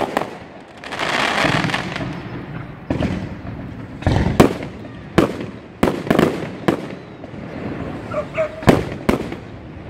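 Aerial fireworks: a run of sharp bangs from shells bursting overhead, irregularly spaced, with a dense crackling hiss about a second in.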